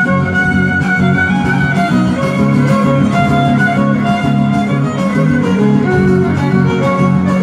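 Instrumental string music: a violin playing a melody with held notes over a rhythmic guitar accompaniment.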